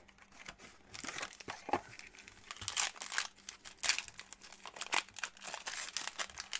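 Foil trading-card pack wrapper crinkling and crackling in the hands as it is worked and torn open, with many quick, irregular crackles.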